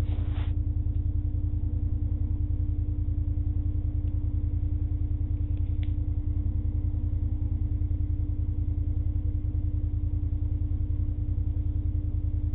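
Steady low mechanical rumble with a constant hum above it, heard through the thermal scope's recorder with nothing above the low and middle range.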